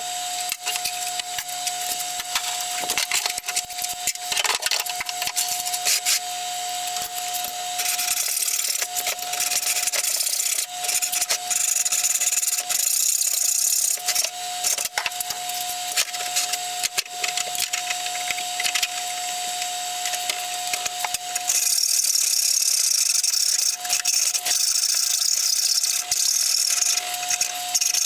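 Hand hacksaw cutting through the metal frame of a small three-wheel band saw: a continuous run of rasping strokes, heavier in two long stretches, over a steady faint hum.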